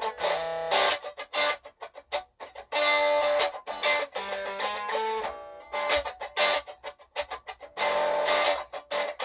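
Electric guitar playing a simple blues lick through a Smokey pocket amplifier. A short phrase of plucked notes repeats as a loop from a Ditto looper pedal.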